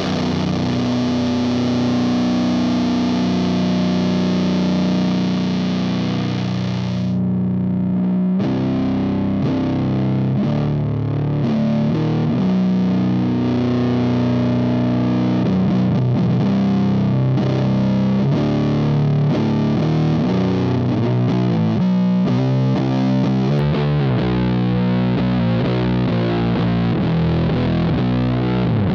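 Electric guitar played through the Elder God fuzz pedal (a silicon Fuzz Face and a Green Russian-style fuzz in one box) into a Mesa Boogie amp's clean channel, giving a thick, heavy doom fuzz tone. Long sustained low chords ring out first. Then comes choppier riffing with more note changes.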